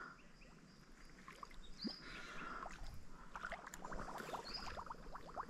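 Faint small water splashes and drips at the surface of a pool, a quick run of plinks clustering in the second half, with a couple of short high bird chirps.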